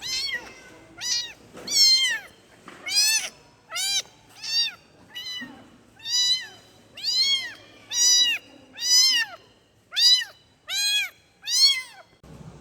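Kitten meowing over and over, calling for its mother: about fourteen high, arching meows, each rising and then falling in pitch, roughly one a second.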